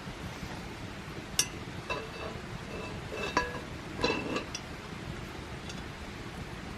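Camp cookware being handled: a few light, ringing clinks scattered over a few seconds, the clearest about a second and a half in and around three and four seconds in.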